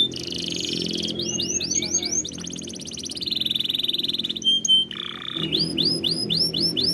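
Domestic canary singing in tours: quick runs of repeated sweeping notes, several a second, give way about two seconds in to a fast rolling trill, then a short held note, and the repeated sweeping notes return near the end. A steady low hum runs underneath.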